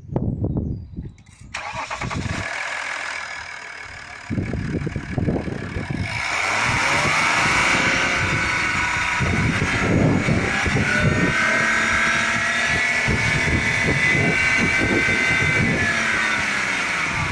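Chrysler 300C's 3.0-litre CRD V6 diesel engine starting about a second and a half in, then running steadily with a whine that rises and falls in pitch.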